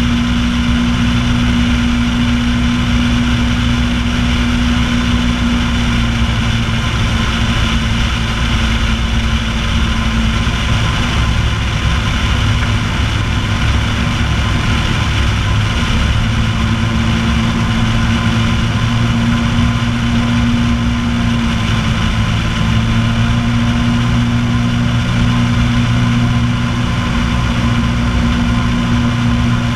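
Piper Pacer's piston engine and propeller droning steadily in flight, heard from outside the cabin near the wing strut.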